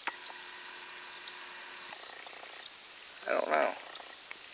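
Insects chirping outdoors: short chirp groups repeat about every second and a half over a steady high drone. A man's voice gives a brief murmur about three seconds in.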